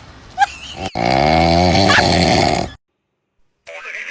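A sleeping monkey snoring: one long, loud, pitched snore about a second in that cuts off suddenly, preceded by a short high squeak.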